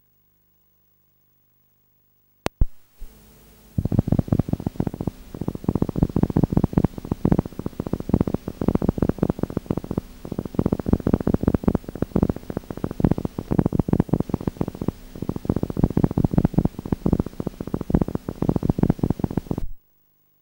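A sharp click, then a loud, rough mechanical rumble made of rapid, irregular pulses that cuts off suddenly near the end.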